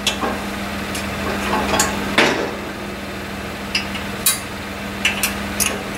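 A handful of sharp metal clicks and clanks as a pin on the snow plow's mount frame is handled and lifted, the loudest a little over two seconds in, over the steady hum of the 2020 Chevy Colorado idling.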